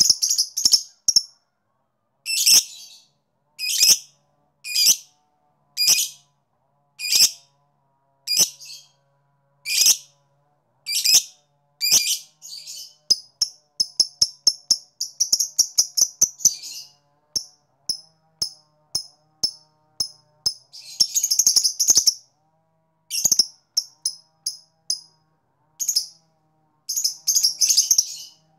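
Fischer's lovebird calling: sharp, high chirps about once a second, then fast runs of clicking chirps of the kind bird-keepers call 'ngetik' (typing), and a longer dense chattering call about two-thirds of the way in.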